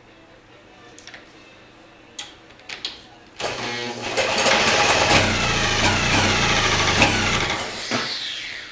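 A few clicks, then an outboard motor is spun over and runs loudly for about five seconds before winding down. This is the 1937 Johnson KA-37, whose trouble is that it won't start.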